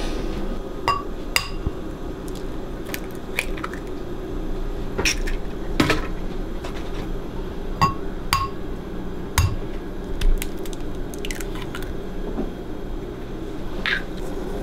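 Raw eggs being cracked into white ceramic bowls: a series of sharp taps and clinks of shell and fingers against the bowl rims, with a steady low hum underneath.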